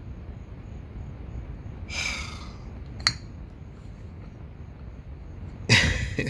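Quiet room hiss broken by a short breathy exhale about two seconds in, a single sharp click a second later, and a louder breathy snort near the end.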